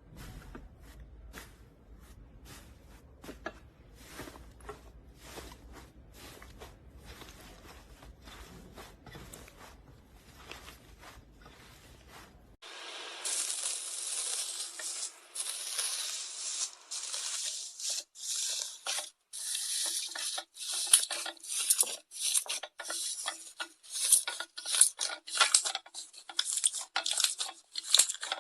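Slime being squeezed and stretched by hand, making rapid sticky crackles and small pops. The crackling is faint for about the first twelve seconds, then turns much louder and sharper, with short breaks between the bursts.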